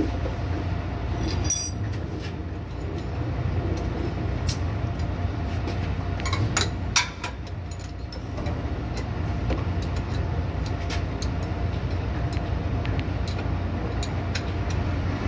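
Hand tools clicking and clinking on metal under a car as a power steering pump is worked on, with two louder knocks about a second and a half in and about seven seconds in, over a steady low rumble.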